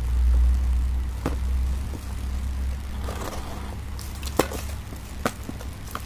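Plastic packaging being handled as a bubble-lined poly mailer is cut open with a utility knife: crinkling and rustling with about three sharp clicks, the loudest near the end. A steady low rumble sits underneath, strongest in the first second or so.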